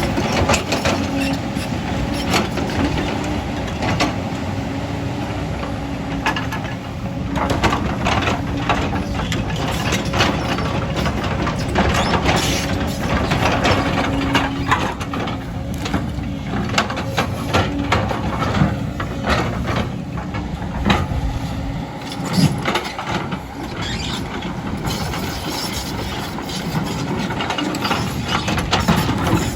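Diesel engine of heavy earthmoving equipment running, with frequent short knocks and clanks.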